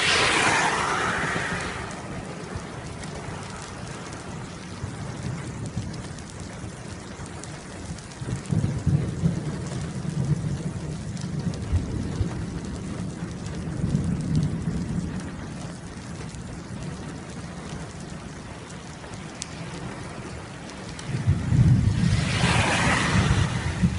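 Steady rain with low thunder rolling several times; the loudest rumble, together with a surge of rain noise, comes near the end.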